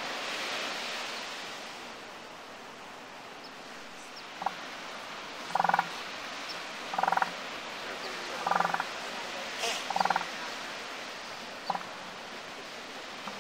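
Elephant seal calling: four short, pulsing calls about a second and a half apart, over a steady hiss of surf.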